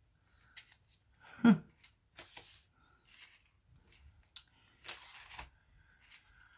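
Paper and card rustling and sliding as small paper items are handled, with scattered light clicks and a brief voiced murmur about a second and a half in.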